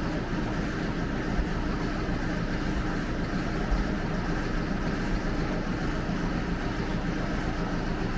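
Steady mechanical drone with a faint low hum and no distinct events.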